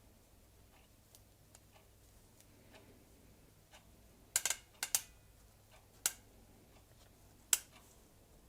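A few sharp clicks of small steel ball bearings being picked out of a dismantled bicycle pedal and set down, in the middle of the stretch, with faint ticks between them.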